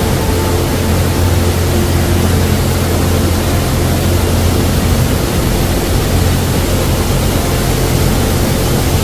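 Steady rush of white-water river rapids pouring over rocks and a low weir, a constant even roar with a deep low rumble.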